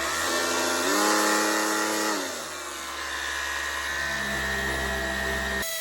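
Electric power sander running on body filler, a steady motor whine over the hiss of abrasive on the panel. The pitch rises about a second in and drops back a second later as the load on the pad changes. The sound changes abruptly near the end.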